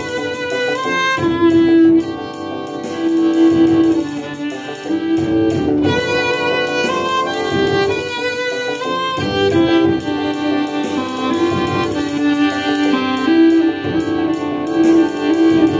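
Cello played with a bow, a melody of changing, mostly held notes in its middle register, over a backing beat of a repeating guitar pattern, busy hi-hats, snare and bass.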